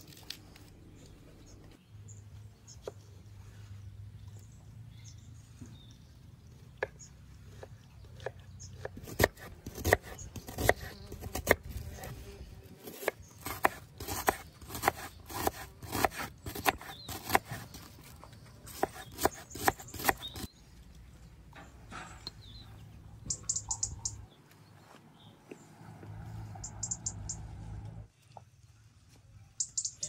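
A kitchen knife slicing an onion on a wooden cutting board: a run of sharp strokes, about two a second, for roughly ten seconds. A bird chirps briefly a few times near the end.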